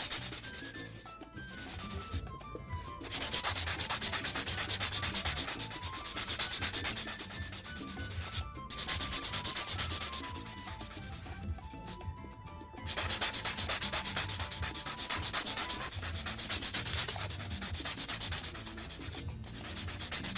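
A 240-grit hand file sanding the underside of a long artificial nail in quick back-and-forth strokes, with a few short pauses. This is the bevelling of the inside of the nail, which evens out the C curve and tapers it.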